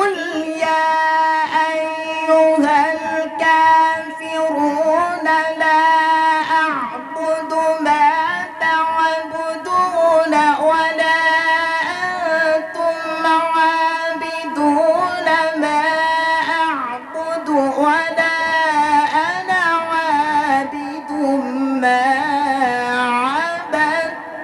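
Quran recitation (qirat) chanted by a single voice in long, ornamented melodic lines. Notes are held and bend up and down, with almost no pauses.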